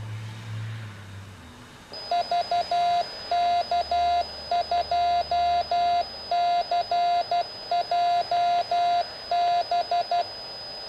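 A Morse code tone keyed on and off, spelling the call sign VK2CJB. It is an FM transmission from a HackRF, heard through the speaker of a Yaesu VX-6 handheld radio. The tone starts about two seconds in and cuts off abruptly when the transmission ends.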